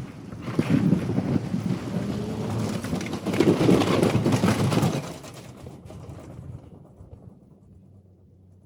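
Car running, heard as a rough rumble mixed with wind buffeting the microphone, loud for about five seconds and then fading away.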